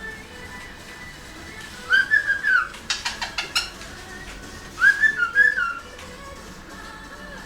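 Pet cockatiel whistling two short phrases of bending notes, about two seconds in and again about five seconds in, with a quick run of sharp chirps between them.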